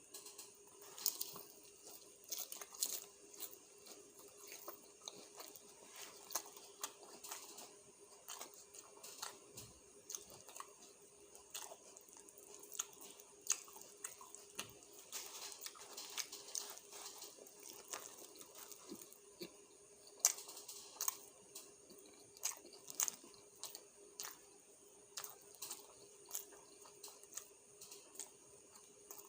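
Close-miked chewing of a hamburger: irregular wet mouth clicks and smacks with crunchy bites. A faint steady hum runs underneath.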